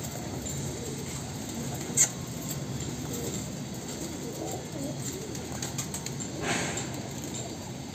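Domestic pigeons cooing softly in a loft cage. There is a sharp click about two seconds in, and a short rustle a little after six seconds.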